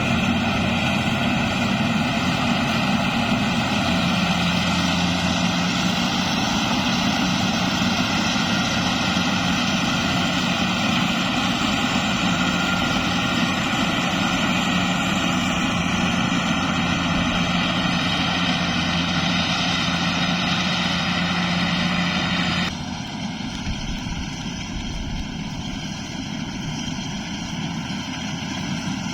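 Rice combine harvester running steadily, a dense mechanical hum with several steady tones. About 23 seconds in, the sound switches abruptly to a quieter run with a different pitch.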